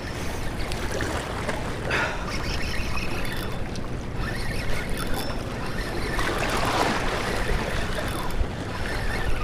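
Wind buffeting the microphone over waves washing and splashing against shoreline rocks: a steady, noisy rush with no clear rhythm.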